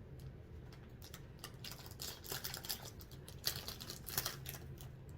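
Plastic wrapping on a Peeps package being picked at and pulled open by hand: scattered light clicks and crinkles, in two busier spells.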